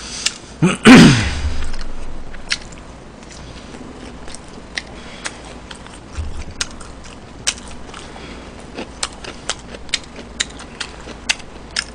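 Close-miked eating of fried chicken: chewing and crunching with many short sharp clicks, including chopsticks picking pieces from the boxes. About a second in there is a brief loud vocal sound that falls in pitch.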